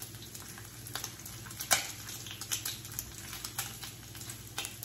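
Bacon frying on a griddle pan: a light crackle with scattered sharp pops and clicks, the loudest about two seconds in, as metal tongs lift and turn the strips.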